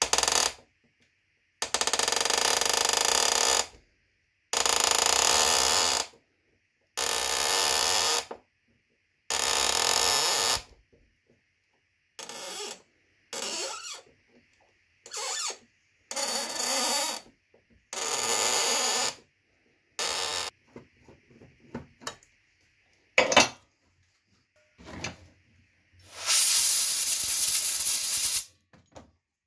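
M2 tap being turned by hand in a ratchet tap wrench, cutting a thread into an LGB G-scale turnout, squeaking and crunching as it cuts. It comes in about ten bursts of one to two seconds with short pauses between, a sharp click past the middle, and the longest, loudest burst near the end.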